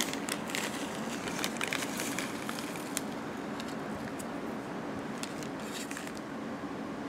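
Small metal spoon scraping and clicking in a bowl of dry powder as gold magnetic sand is stirred in, with the grains rustling. Scattered light scratchy clicks, thickest in the first few seconds with a few more about five seconds in, over a steady low hum.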